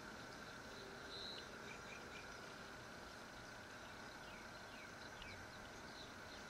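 Low, steady background hiss with a high hum running through it, and a few faint short chirps scattered across it.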